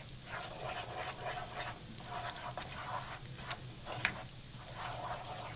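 Cheese cream sauce sizzling in a sauté pan as a wooden spoon stirs it, with short scrapes and taps of the spoon on the pan now and then.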